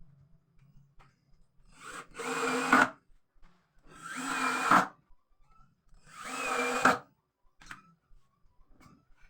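Electric drill run in three short bursts of about a second each, each building up and then stopping abruptly, as when driving screws into wood.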